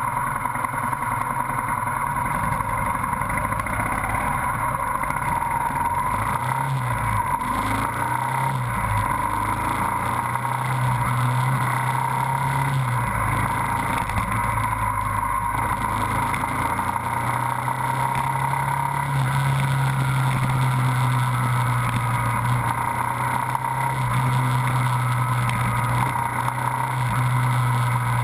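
Motorcycle engine running while riding through city traffic, its low drone rising and settling with the throttle and strongest in the second half.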